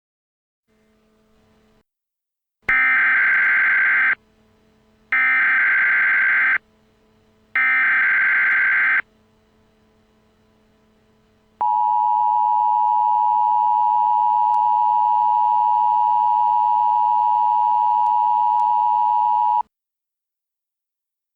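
Emergency Alert System header: three short screeching bursts of SAME data tones, each about a second and a half long, followed by the steady two-tone EAS attention signal held for about eight seconds, which cuts off sharply.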